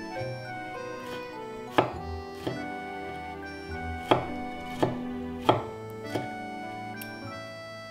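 Chef's knife slicing and dicing tomatoes on an end-grain wooden cutting board: about seven separate knocks as the blade cuts through and hits the wood, spaced well under a second apart, over soft background music.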